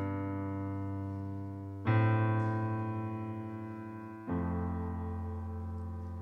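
Yamaha stage keyboard playing slow, sustained piano chords, a new chord struck about two seconds in and another about four seconds in, each left to ring and fade: the solo keyboard introduction before the vocal enters.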